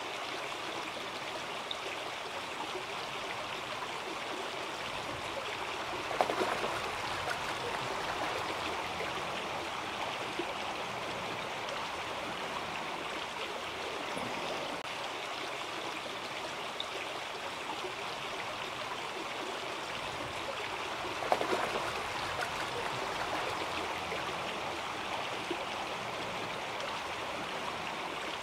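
Shallow creek water running steadily over a gravel riffle, with two brief louder splashes, one about a fifth of the way in and one about three-quarters of the way in.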